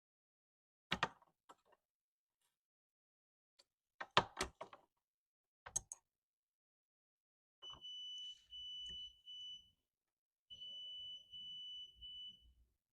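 A few sharp clicks and taps, then an electronic piezo beeper sounding a steady high tone in two long beeps of about two seconds each, briefly breaking up within each beep.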